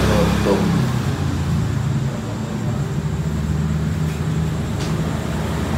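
Steady low rumble of background vehicle traffic, with a faint click about five seconds in.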